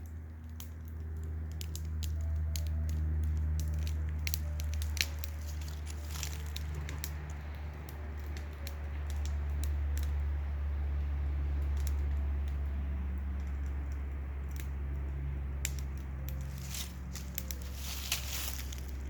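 Wood fire crackling and popping with irregular sharp snaps, over a steady low rumble.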